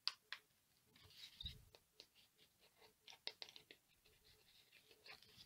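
Faint, scattered clicks and scratches of a hobby knife working at a model airplane's foam tail near the rudder hinge.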